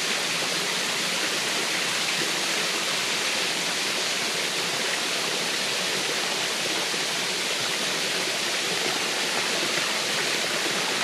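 Waterfall: a steady rush of water pouring over the falls and splashing below.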